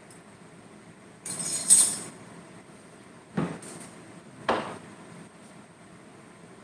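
Kitchenware being handled: about a second of clattering, then two short sharp knocks about a second apart.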